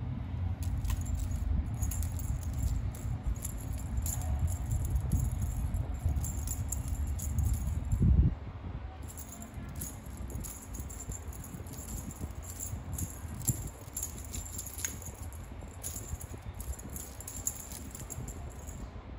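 Metal chain and charm of a cat wand toy jangling and rattling as a kitten bats and bites at it. Low scuffing rumble through the first half, ending in a loud bump about eight seconds in.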